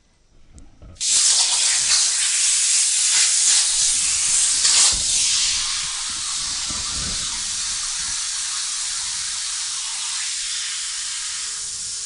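CNC plasma table's torch at 45 amps on 14-gauge sheet, making a test cut: a loud hiss of arc and air starts suddenly about a second in. It is louder and rougher for the first few seconds, then evens out to a steady hiss.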